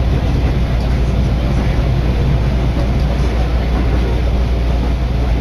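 Steady running noise inside a Senseki Line electric commuter train on the move: a constant low rumble under an even hiss.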